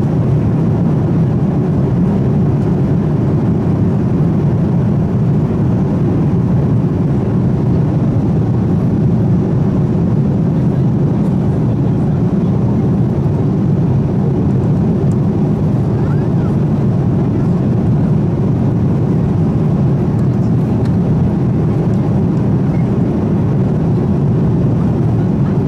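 Steady in-flight cabin noise of a Boeing 787-9 airliner: an even low drone of engines and rushing air, unchanging throughout.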